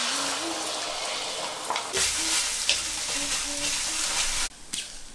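Beaten egg frying in hot oil in a wok, a steady sizzle, with a wooden spatula stirring and knocking against the wok a few times. The sizzle cuts off suddenly about four and a half seconds in.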